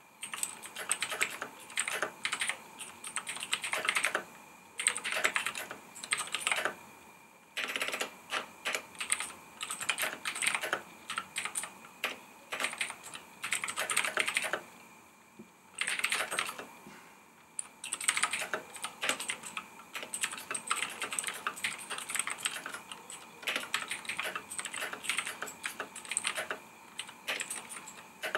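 Typing on a Razer BlackWidow Chroma mechanical keyboard: fast runs of sharp key clicks in bursts, with brief pauses between them.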